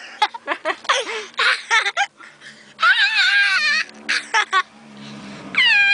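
A young girl's voice: short bursts of laughter, then long, drawn-out wails with her head thrown back and mouth wide open, about three seconds in and again near the end.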